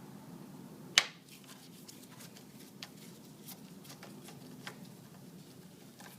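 Hand tool working a motorcycle fairing bolt loose: one sharp click about a second in, then scattered light clicks.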